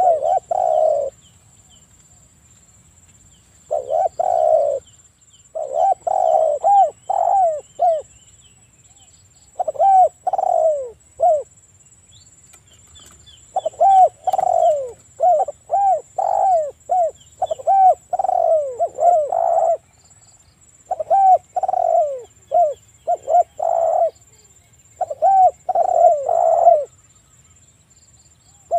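Spotted dove cooing in repeated bouts: runs of short coos that fall in pitch, several in quick succession, with pauses of a second or two between bouts.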